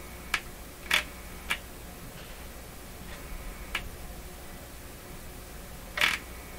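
Steady low mains hum from a Hallicrafters S-40A shortwave receiver, with about five sharp clicks as the loose power-line filter capacitor lead is handled at the chassis, the loudest near the end.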